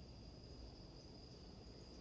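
Crickets trilling in a steady high-pitched chorus, over a faint low rumble.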